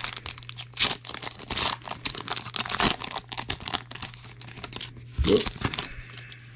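A Panini Prizm trading card pack's foil wrapper being torn open and crinkled as the cards are pulled out: a dense run of short crackling rustles that thins out near the end.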